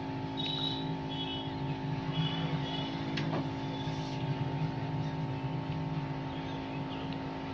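LCD screen separator machine running with a steady hum while it heats the phone's glass, ready for wire cutting. Short high-pitched chirps come now and then, and a single tick sounds about three seconds in.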